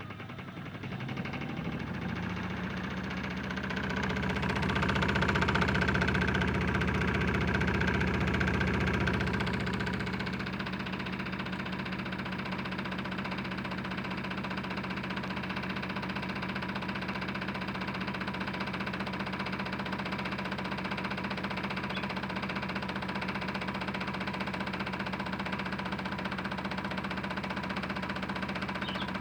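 Modified Hotpoint Ultima WM75 toy washing machine on an unbalanced spin: its small motor builds up over the first couple of seconds and runs loudest for several seconds. It then settles to a steady spin.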